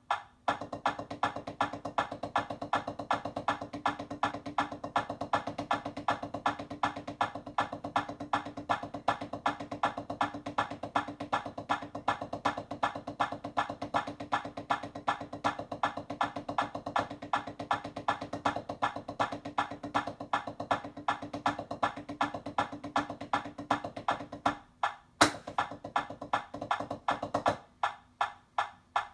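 Drumsticks striking a practice surface in a fast, even stream of strokes with regular louder accents, a repetitive drum exercise. A steady low hum sits underneath until about three-quarters of the way through, and the strokes break off briefly twice near the end.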